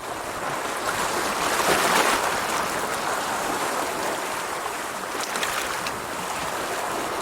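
Rushing water, a steady noise that swells about two seconds in, with a few brief crackles near the middle.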